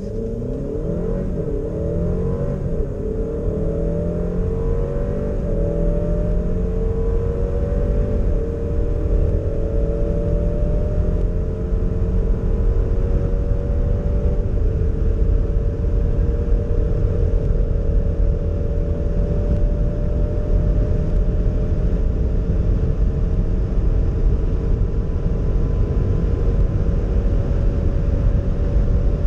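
Alfa Romeo Stelvio's 2.0-litre turbocharged four-cylinder engine under full acceleration, heard inside the cabin. The revs climb and fall back at each upshift of the eight-speed automatic, the shifts coming further apart as speed builds. It settles into a long, slowly rising pull at high speed, with wind and tyre noise growing underneath.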